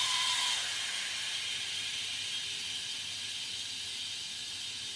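Steady hiss of a water jet from a hose nozzle spraying into a small model turbine.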